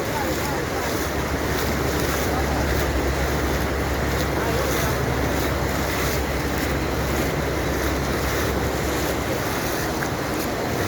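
Steady rushing of floodwater flowing across a road, an even, unbroken wash of noise with a low rumble underneath.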